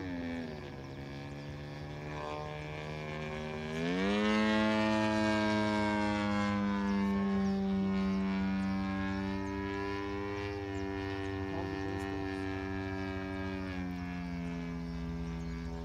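Radio-controlled aerobatic model airplane's engine and propeller droning in flight. The pitch drops just after the start as the throttle comes back, then climbs sharply and gets louder about four seconds in as the throttle opens. It holds steady, then eases down a little near the end.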